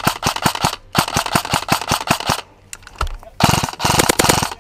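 Airsoft electric rifle (AEG, an EPeS AR-15) firing rapid bursts of shots at about seven a second: one burst ending just under a second in, another from about one to two and a half seconds, and a denser, heavier burst near the end.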